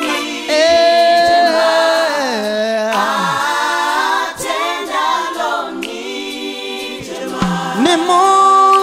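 Gospel choir singing unaccompanied, several voices in harmony on long held notes that slide between pitches.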